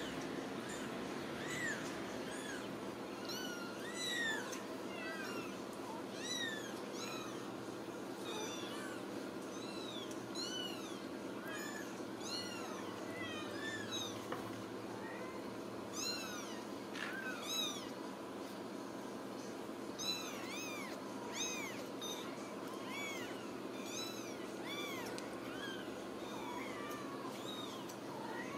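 Ragdoll kittens mewing: many short, high-pitched mews, each rising and falling, coming one or two a second throughout, over a steady low hum.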